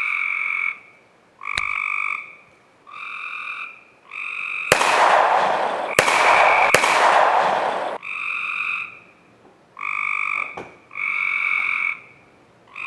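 Frog calling over and over: a buzzy call about a second long, repeated every second and a half or so. About two-thirds of the way through, a loud rushing noise lasting about three seconds, with three sharp clicks in it, covers the calls.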